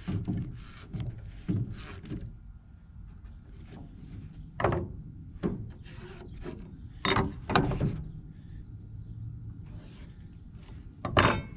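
Wooden siding boards being handled: scraping and rubbing at first, then several separate knocks of boards striking one another, and a louder clatter near the end.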